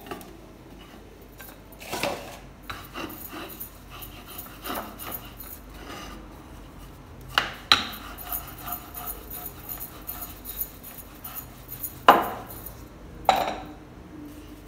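Paratha dough being worked on a wooden board and rolled out with a wooden rolling pin: soft rubbing and rolling, broken by several sharp knocks of the pin and hands against the board, with metal bangles clinking on the wrists.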